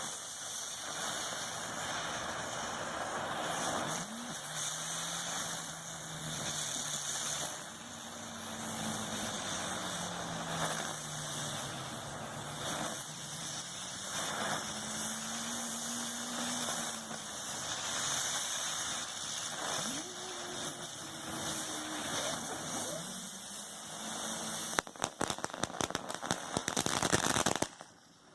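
Small ground fireworks (ground bloom flowers) spinning and hissing, with a slowly wavering whistle. About 25 s in, a dense burst of crackling starts and then cuts off suddenly near the end.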